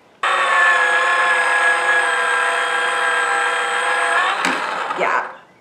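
Toy pottery wheel's small electric motor whining steadily as the wheel head spins under clay. It starts abruptly, runs for about four seconds, then winds down with a click and stops.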